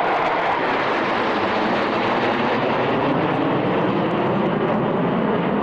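Loud, steady jet noise from a formation of General Dynamics F-111 swing-wing jets flying past, their twin TF30 turbofan engines running at display power.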